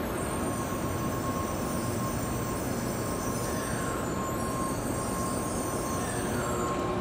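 Tokaido Shinkansen N700-series high-speed train moving along a station platform: a steady rumble and rolling noise with a thin, steady whine.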